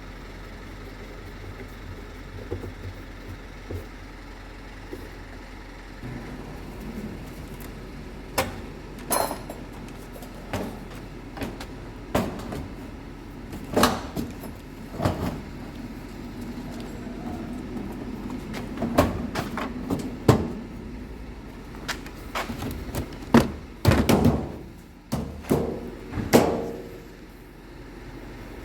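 Irregular knocks and clunks, about a dozen and most of them in the second half, over a steady low hum.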